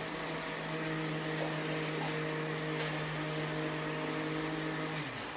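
Electric mixer grinder running steadily as it grinds paan leaves with a little water into a paste, then switched off near the end, the motor's hum falling in pitch as it winds down.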